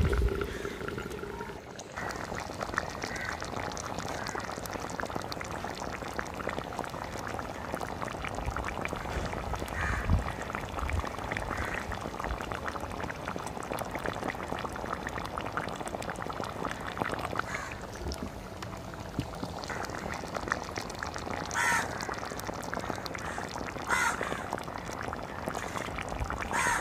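Fish curry simmering in an earthen clay pot over a wood fire: a dense, steady crackle of small bubbles popping. Two short calls cut in near the end.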